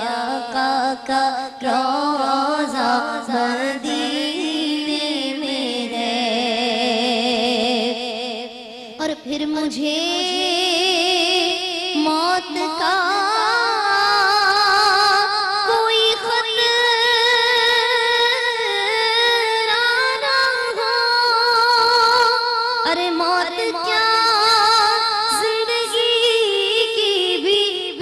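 A woman singing a naat (Urdu devotional song in praise of the Prophet), held, wavering notes drawn out with no clear words; about ten seconds in her voice climbs higher and grows stronger.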